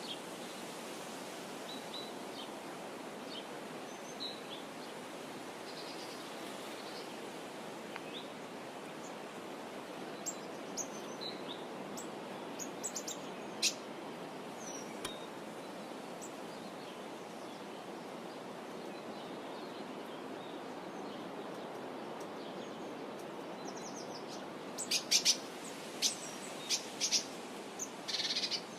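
Small birds chirping now and then over a steady background hiss, with a burst of louder, sharp calls near the end.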